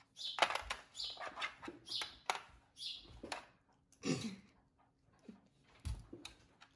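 Capuchin monkey giving short, high squeaky calls that slide downward, repeated roughly once a second.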